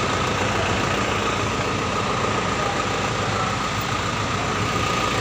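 Isuzu fire truck's engine idling steadily, with a steady high whine over the rumble.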